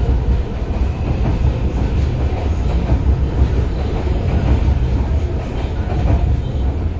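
MTR Kwun Tong line metro train moving past at close range, a steady low rumble of wheels on rail and running gear.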